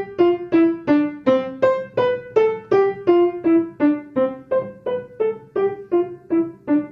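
Piano playing an easy beginner piece: a steady run of single, detached notes at about three a second, the melody stepping up and down in the middle of the keyboard.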